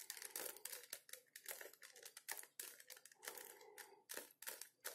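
Rubik's Cube layers being turned quickly by hand while a move sequence is carried out: a faint, fast, irregular run of plastic clicks and scrapes, several a second.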